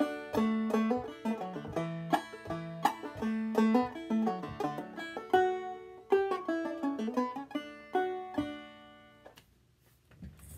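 Five-string banjo played clawhammer style: a quick, rhythmic run of plucked and brushed notes through the end of a fiddle tune. The playing stops about nine seconds in, the final notes ringing out and fading.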